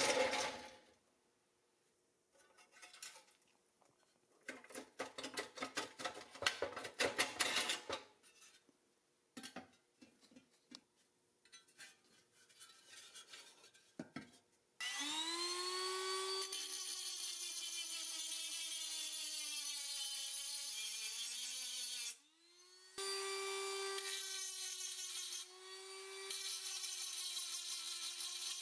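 A rusty pressed-steel toy plow blade is set down on a wooden workbench with a clack, then handled and shifted about with scattered scrapes and knocks. About halfway through, a cordless drill fitted with a small grinding bit spins up and grinds down the head of a rivet. Its whine sags and wavers under load, and it runs in three bursts with short pauses.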